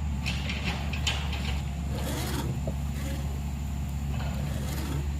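Round file scraping across chainsaw chain cutter teeth in short strokes, several of them about a second apart, sharpening the chain. A steady low hum runs underneath.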